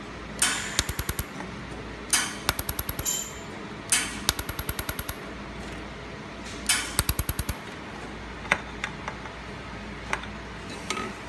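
Handheld laser welder spot-welding steel square tube in pulsed mode: four runs of sharp snaps, each starting with a louder crack and going on in rapid even snaps about ten a second, then a few single snaps near the end. A steady low hum runs underneath.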